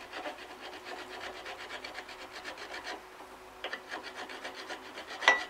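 Hand file rasping in quick short strokes on a steel shaft key at a chain sprocket of a Claas Rollant 46 baler roller; the key has flared slightly and is being filed so it will slide into the keyway. A sharp metallic clink rings out near the end.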